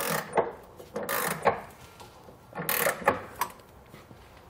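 Ratchet wrench clicking in a few short runs as a nut is run down on a bolt.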